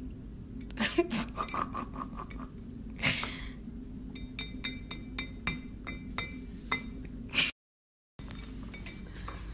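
Drinking glass of milk clinking: a quick string of light taps, about three a second, each ringing briefly at the same clear pitch.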